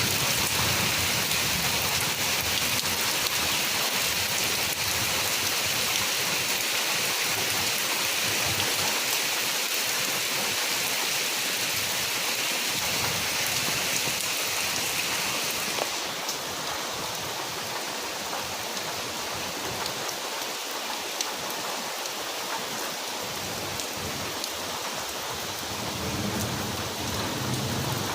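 Steady rain falling, a dense even hiss with faint scattered drop ticks. About halfway through it abruptly turns a little quieter and duller.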